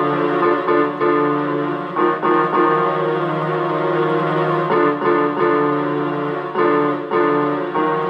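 Keyboard music: slow sustained chords, with new chords struck every half second to two seconds.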